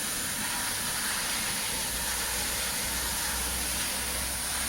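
Drum washing machine running, with a steady hiss of high-pressure water spray over a low hum that grows stronger about two seconds in.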